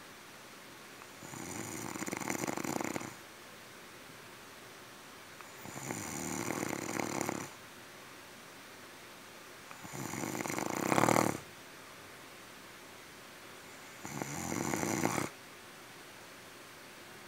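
Snoring: four long snores about four seconds apart, each lasting one and a half to two seconds, growing louder and then cutting off sharply. The third snore is the loudest.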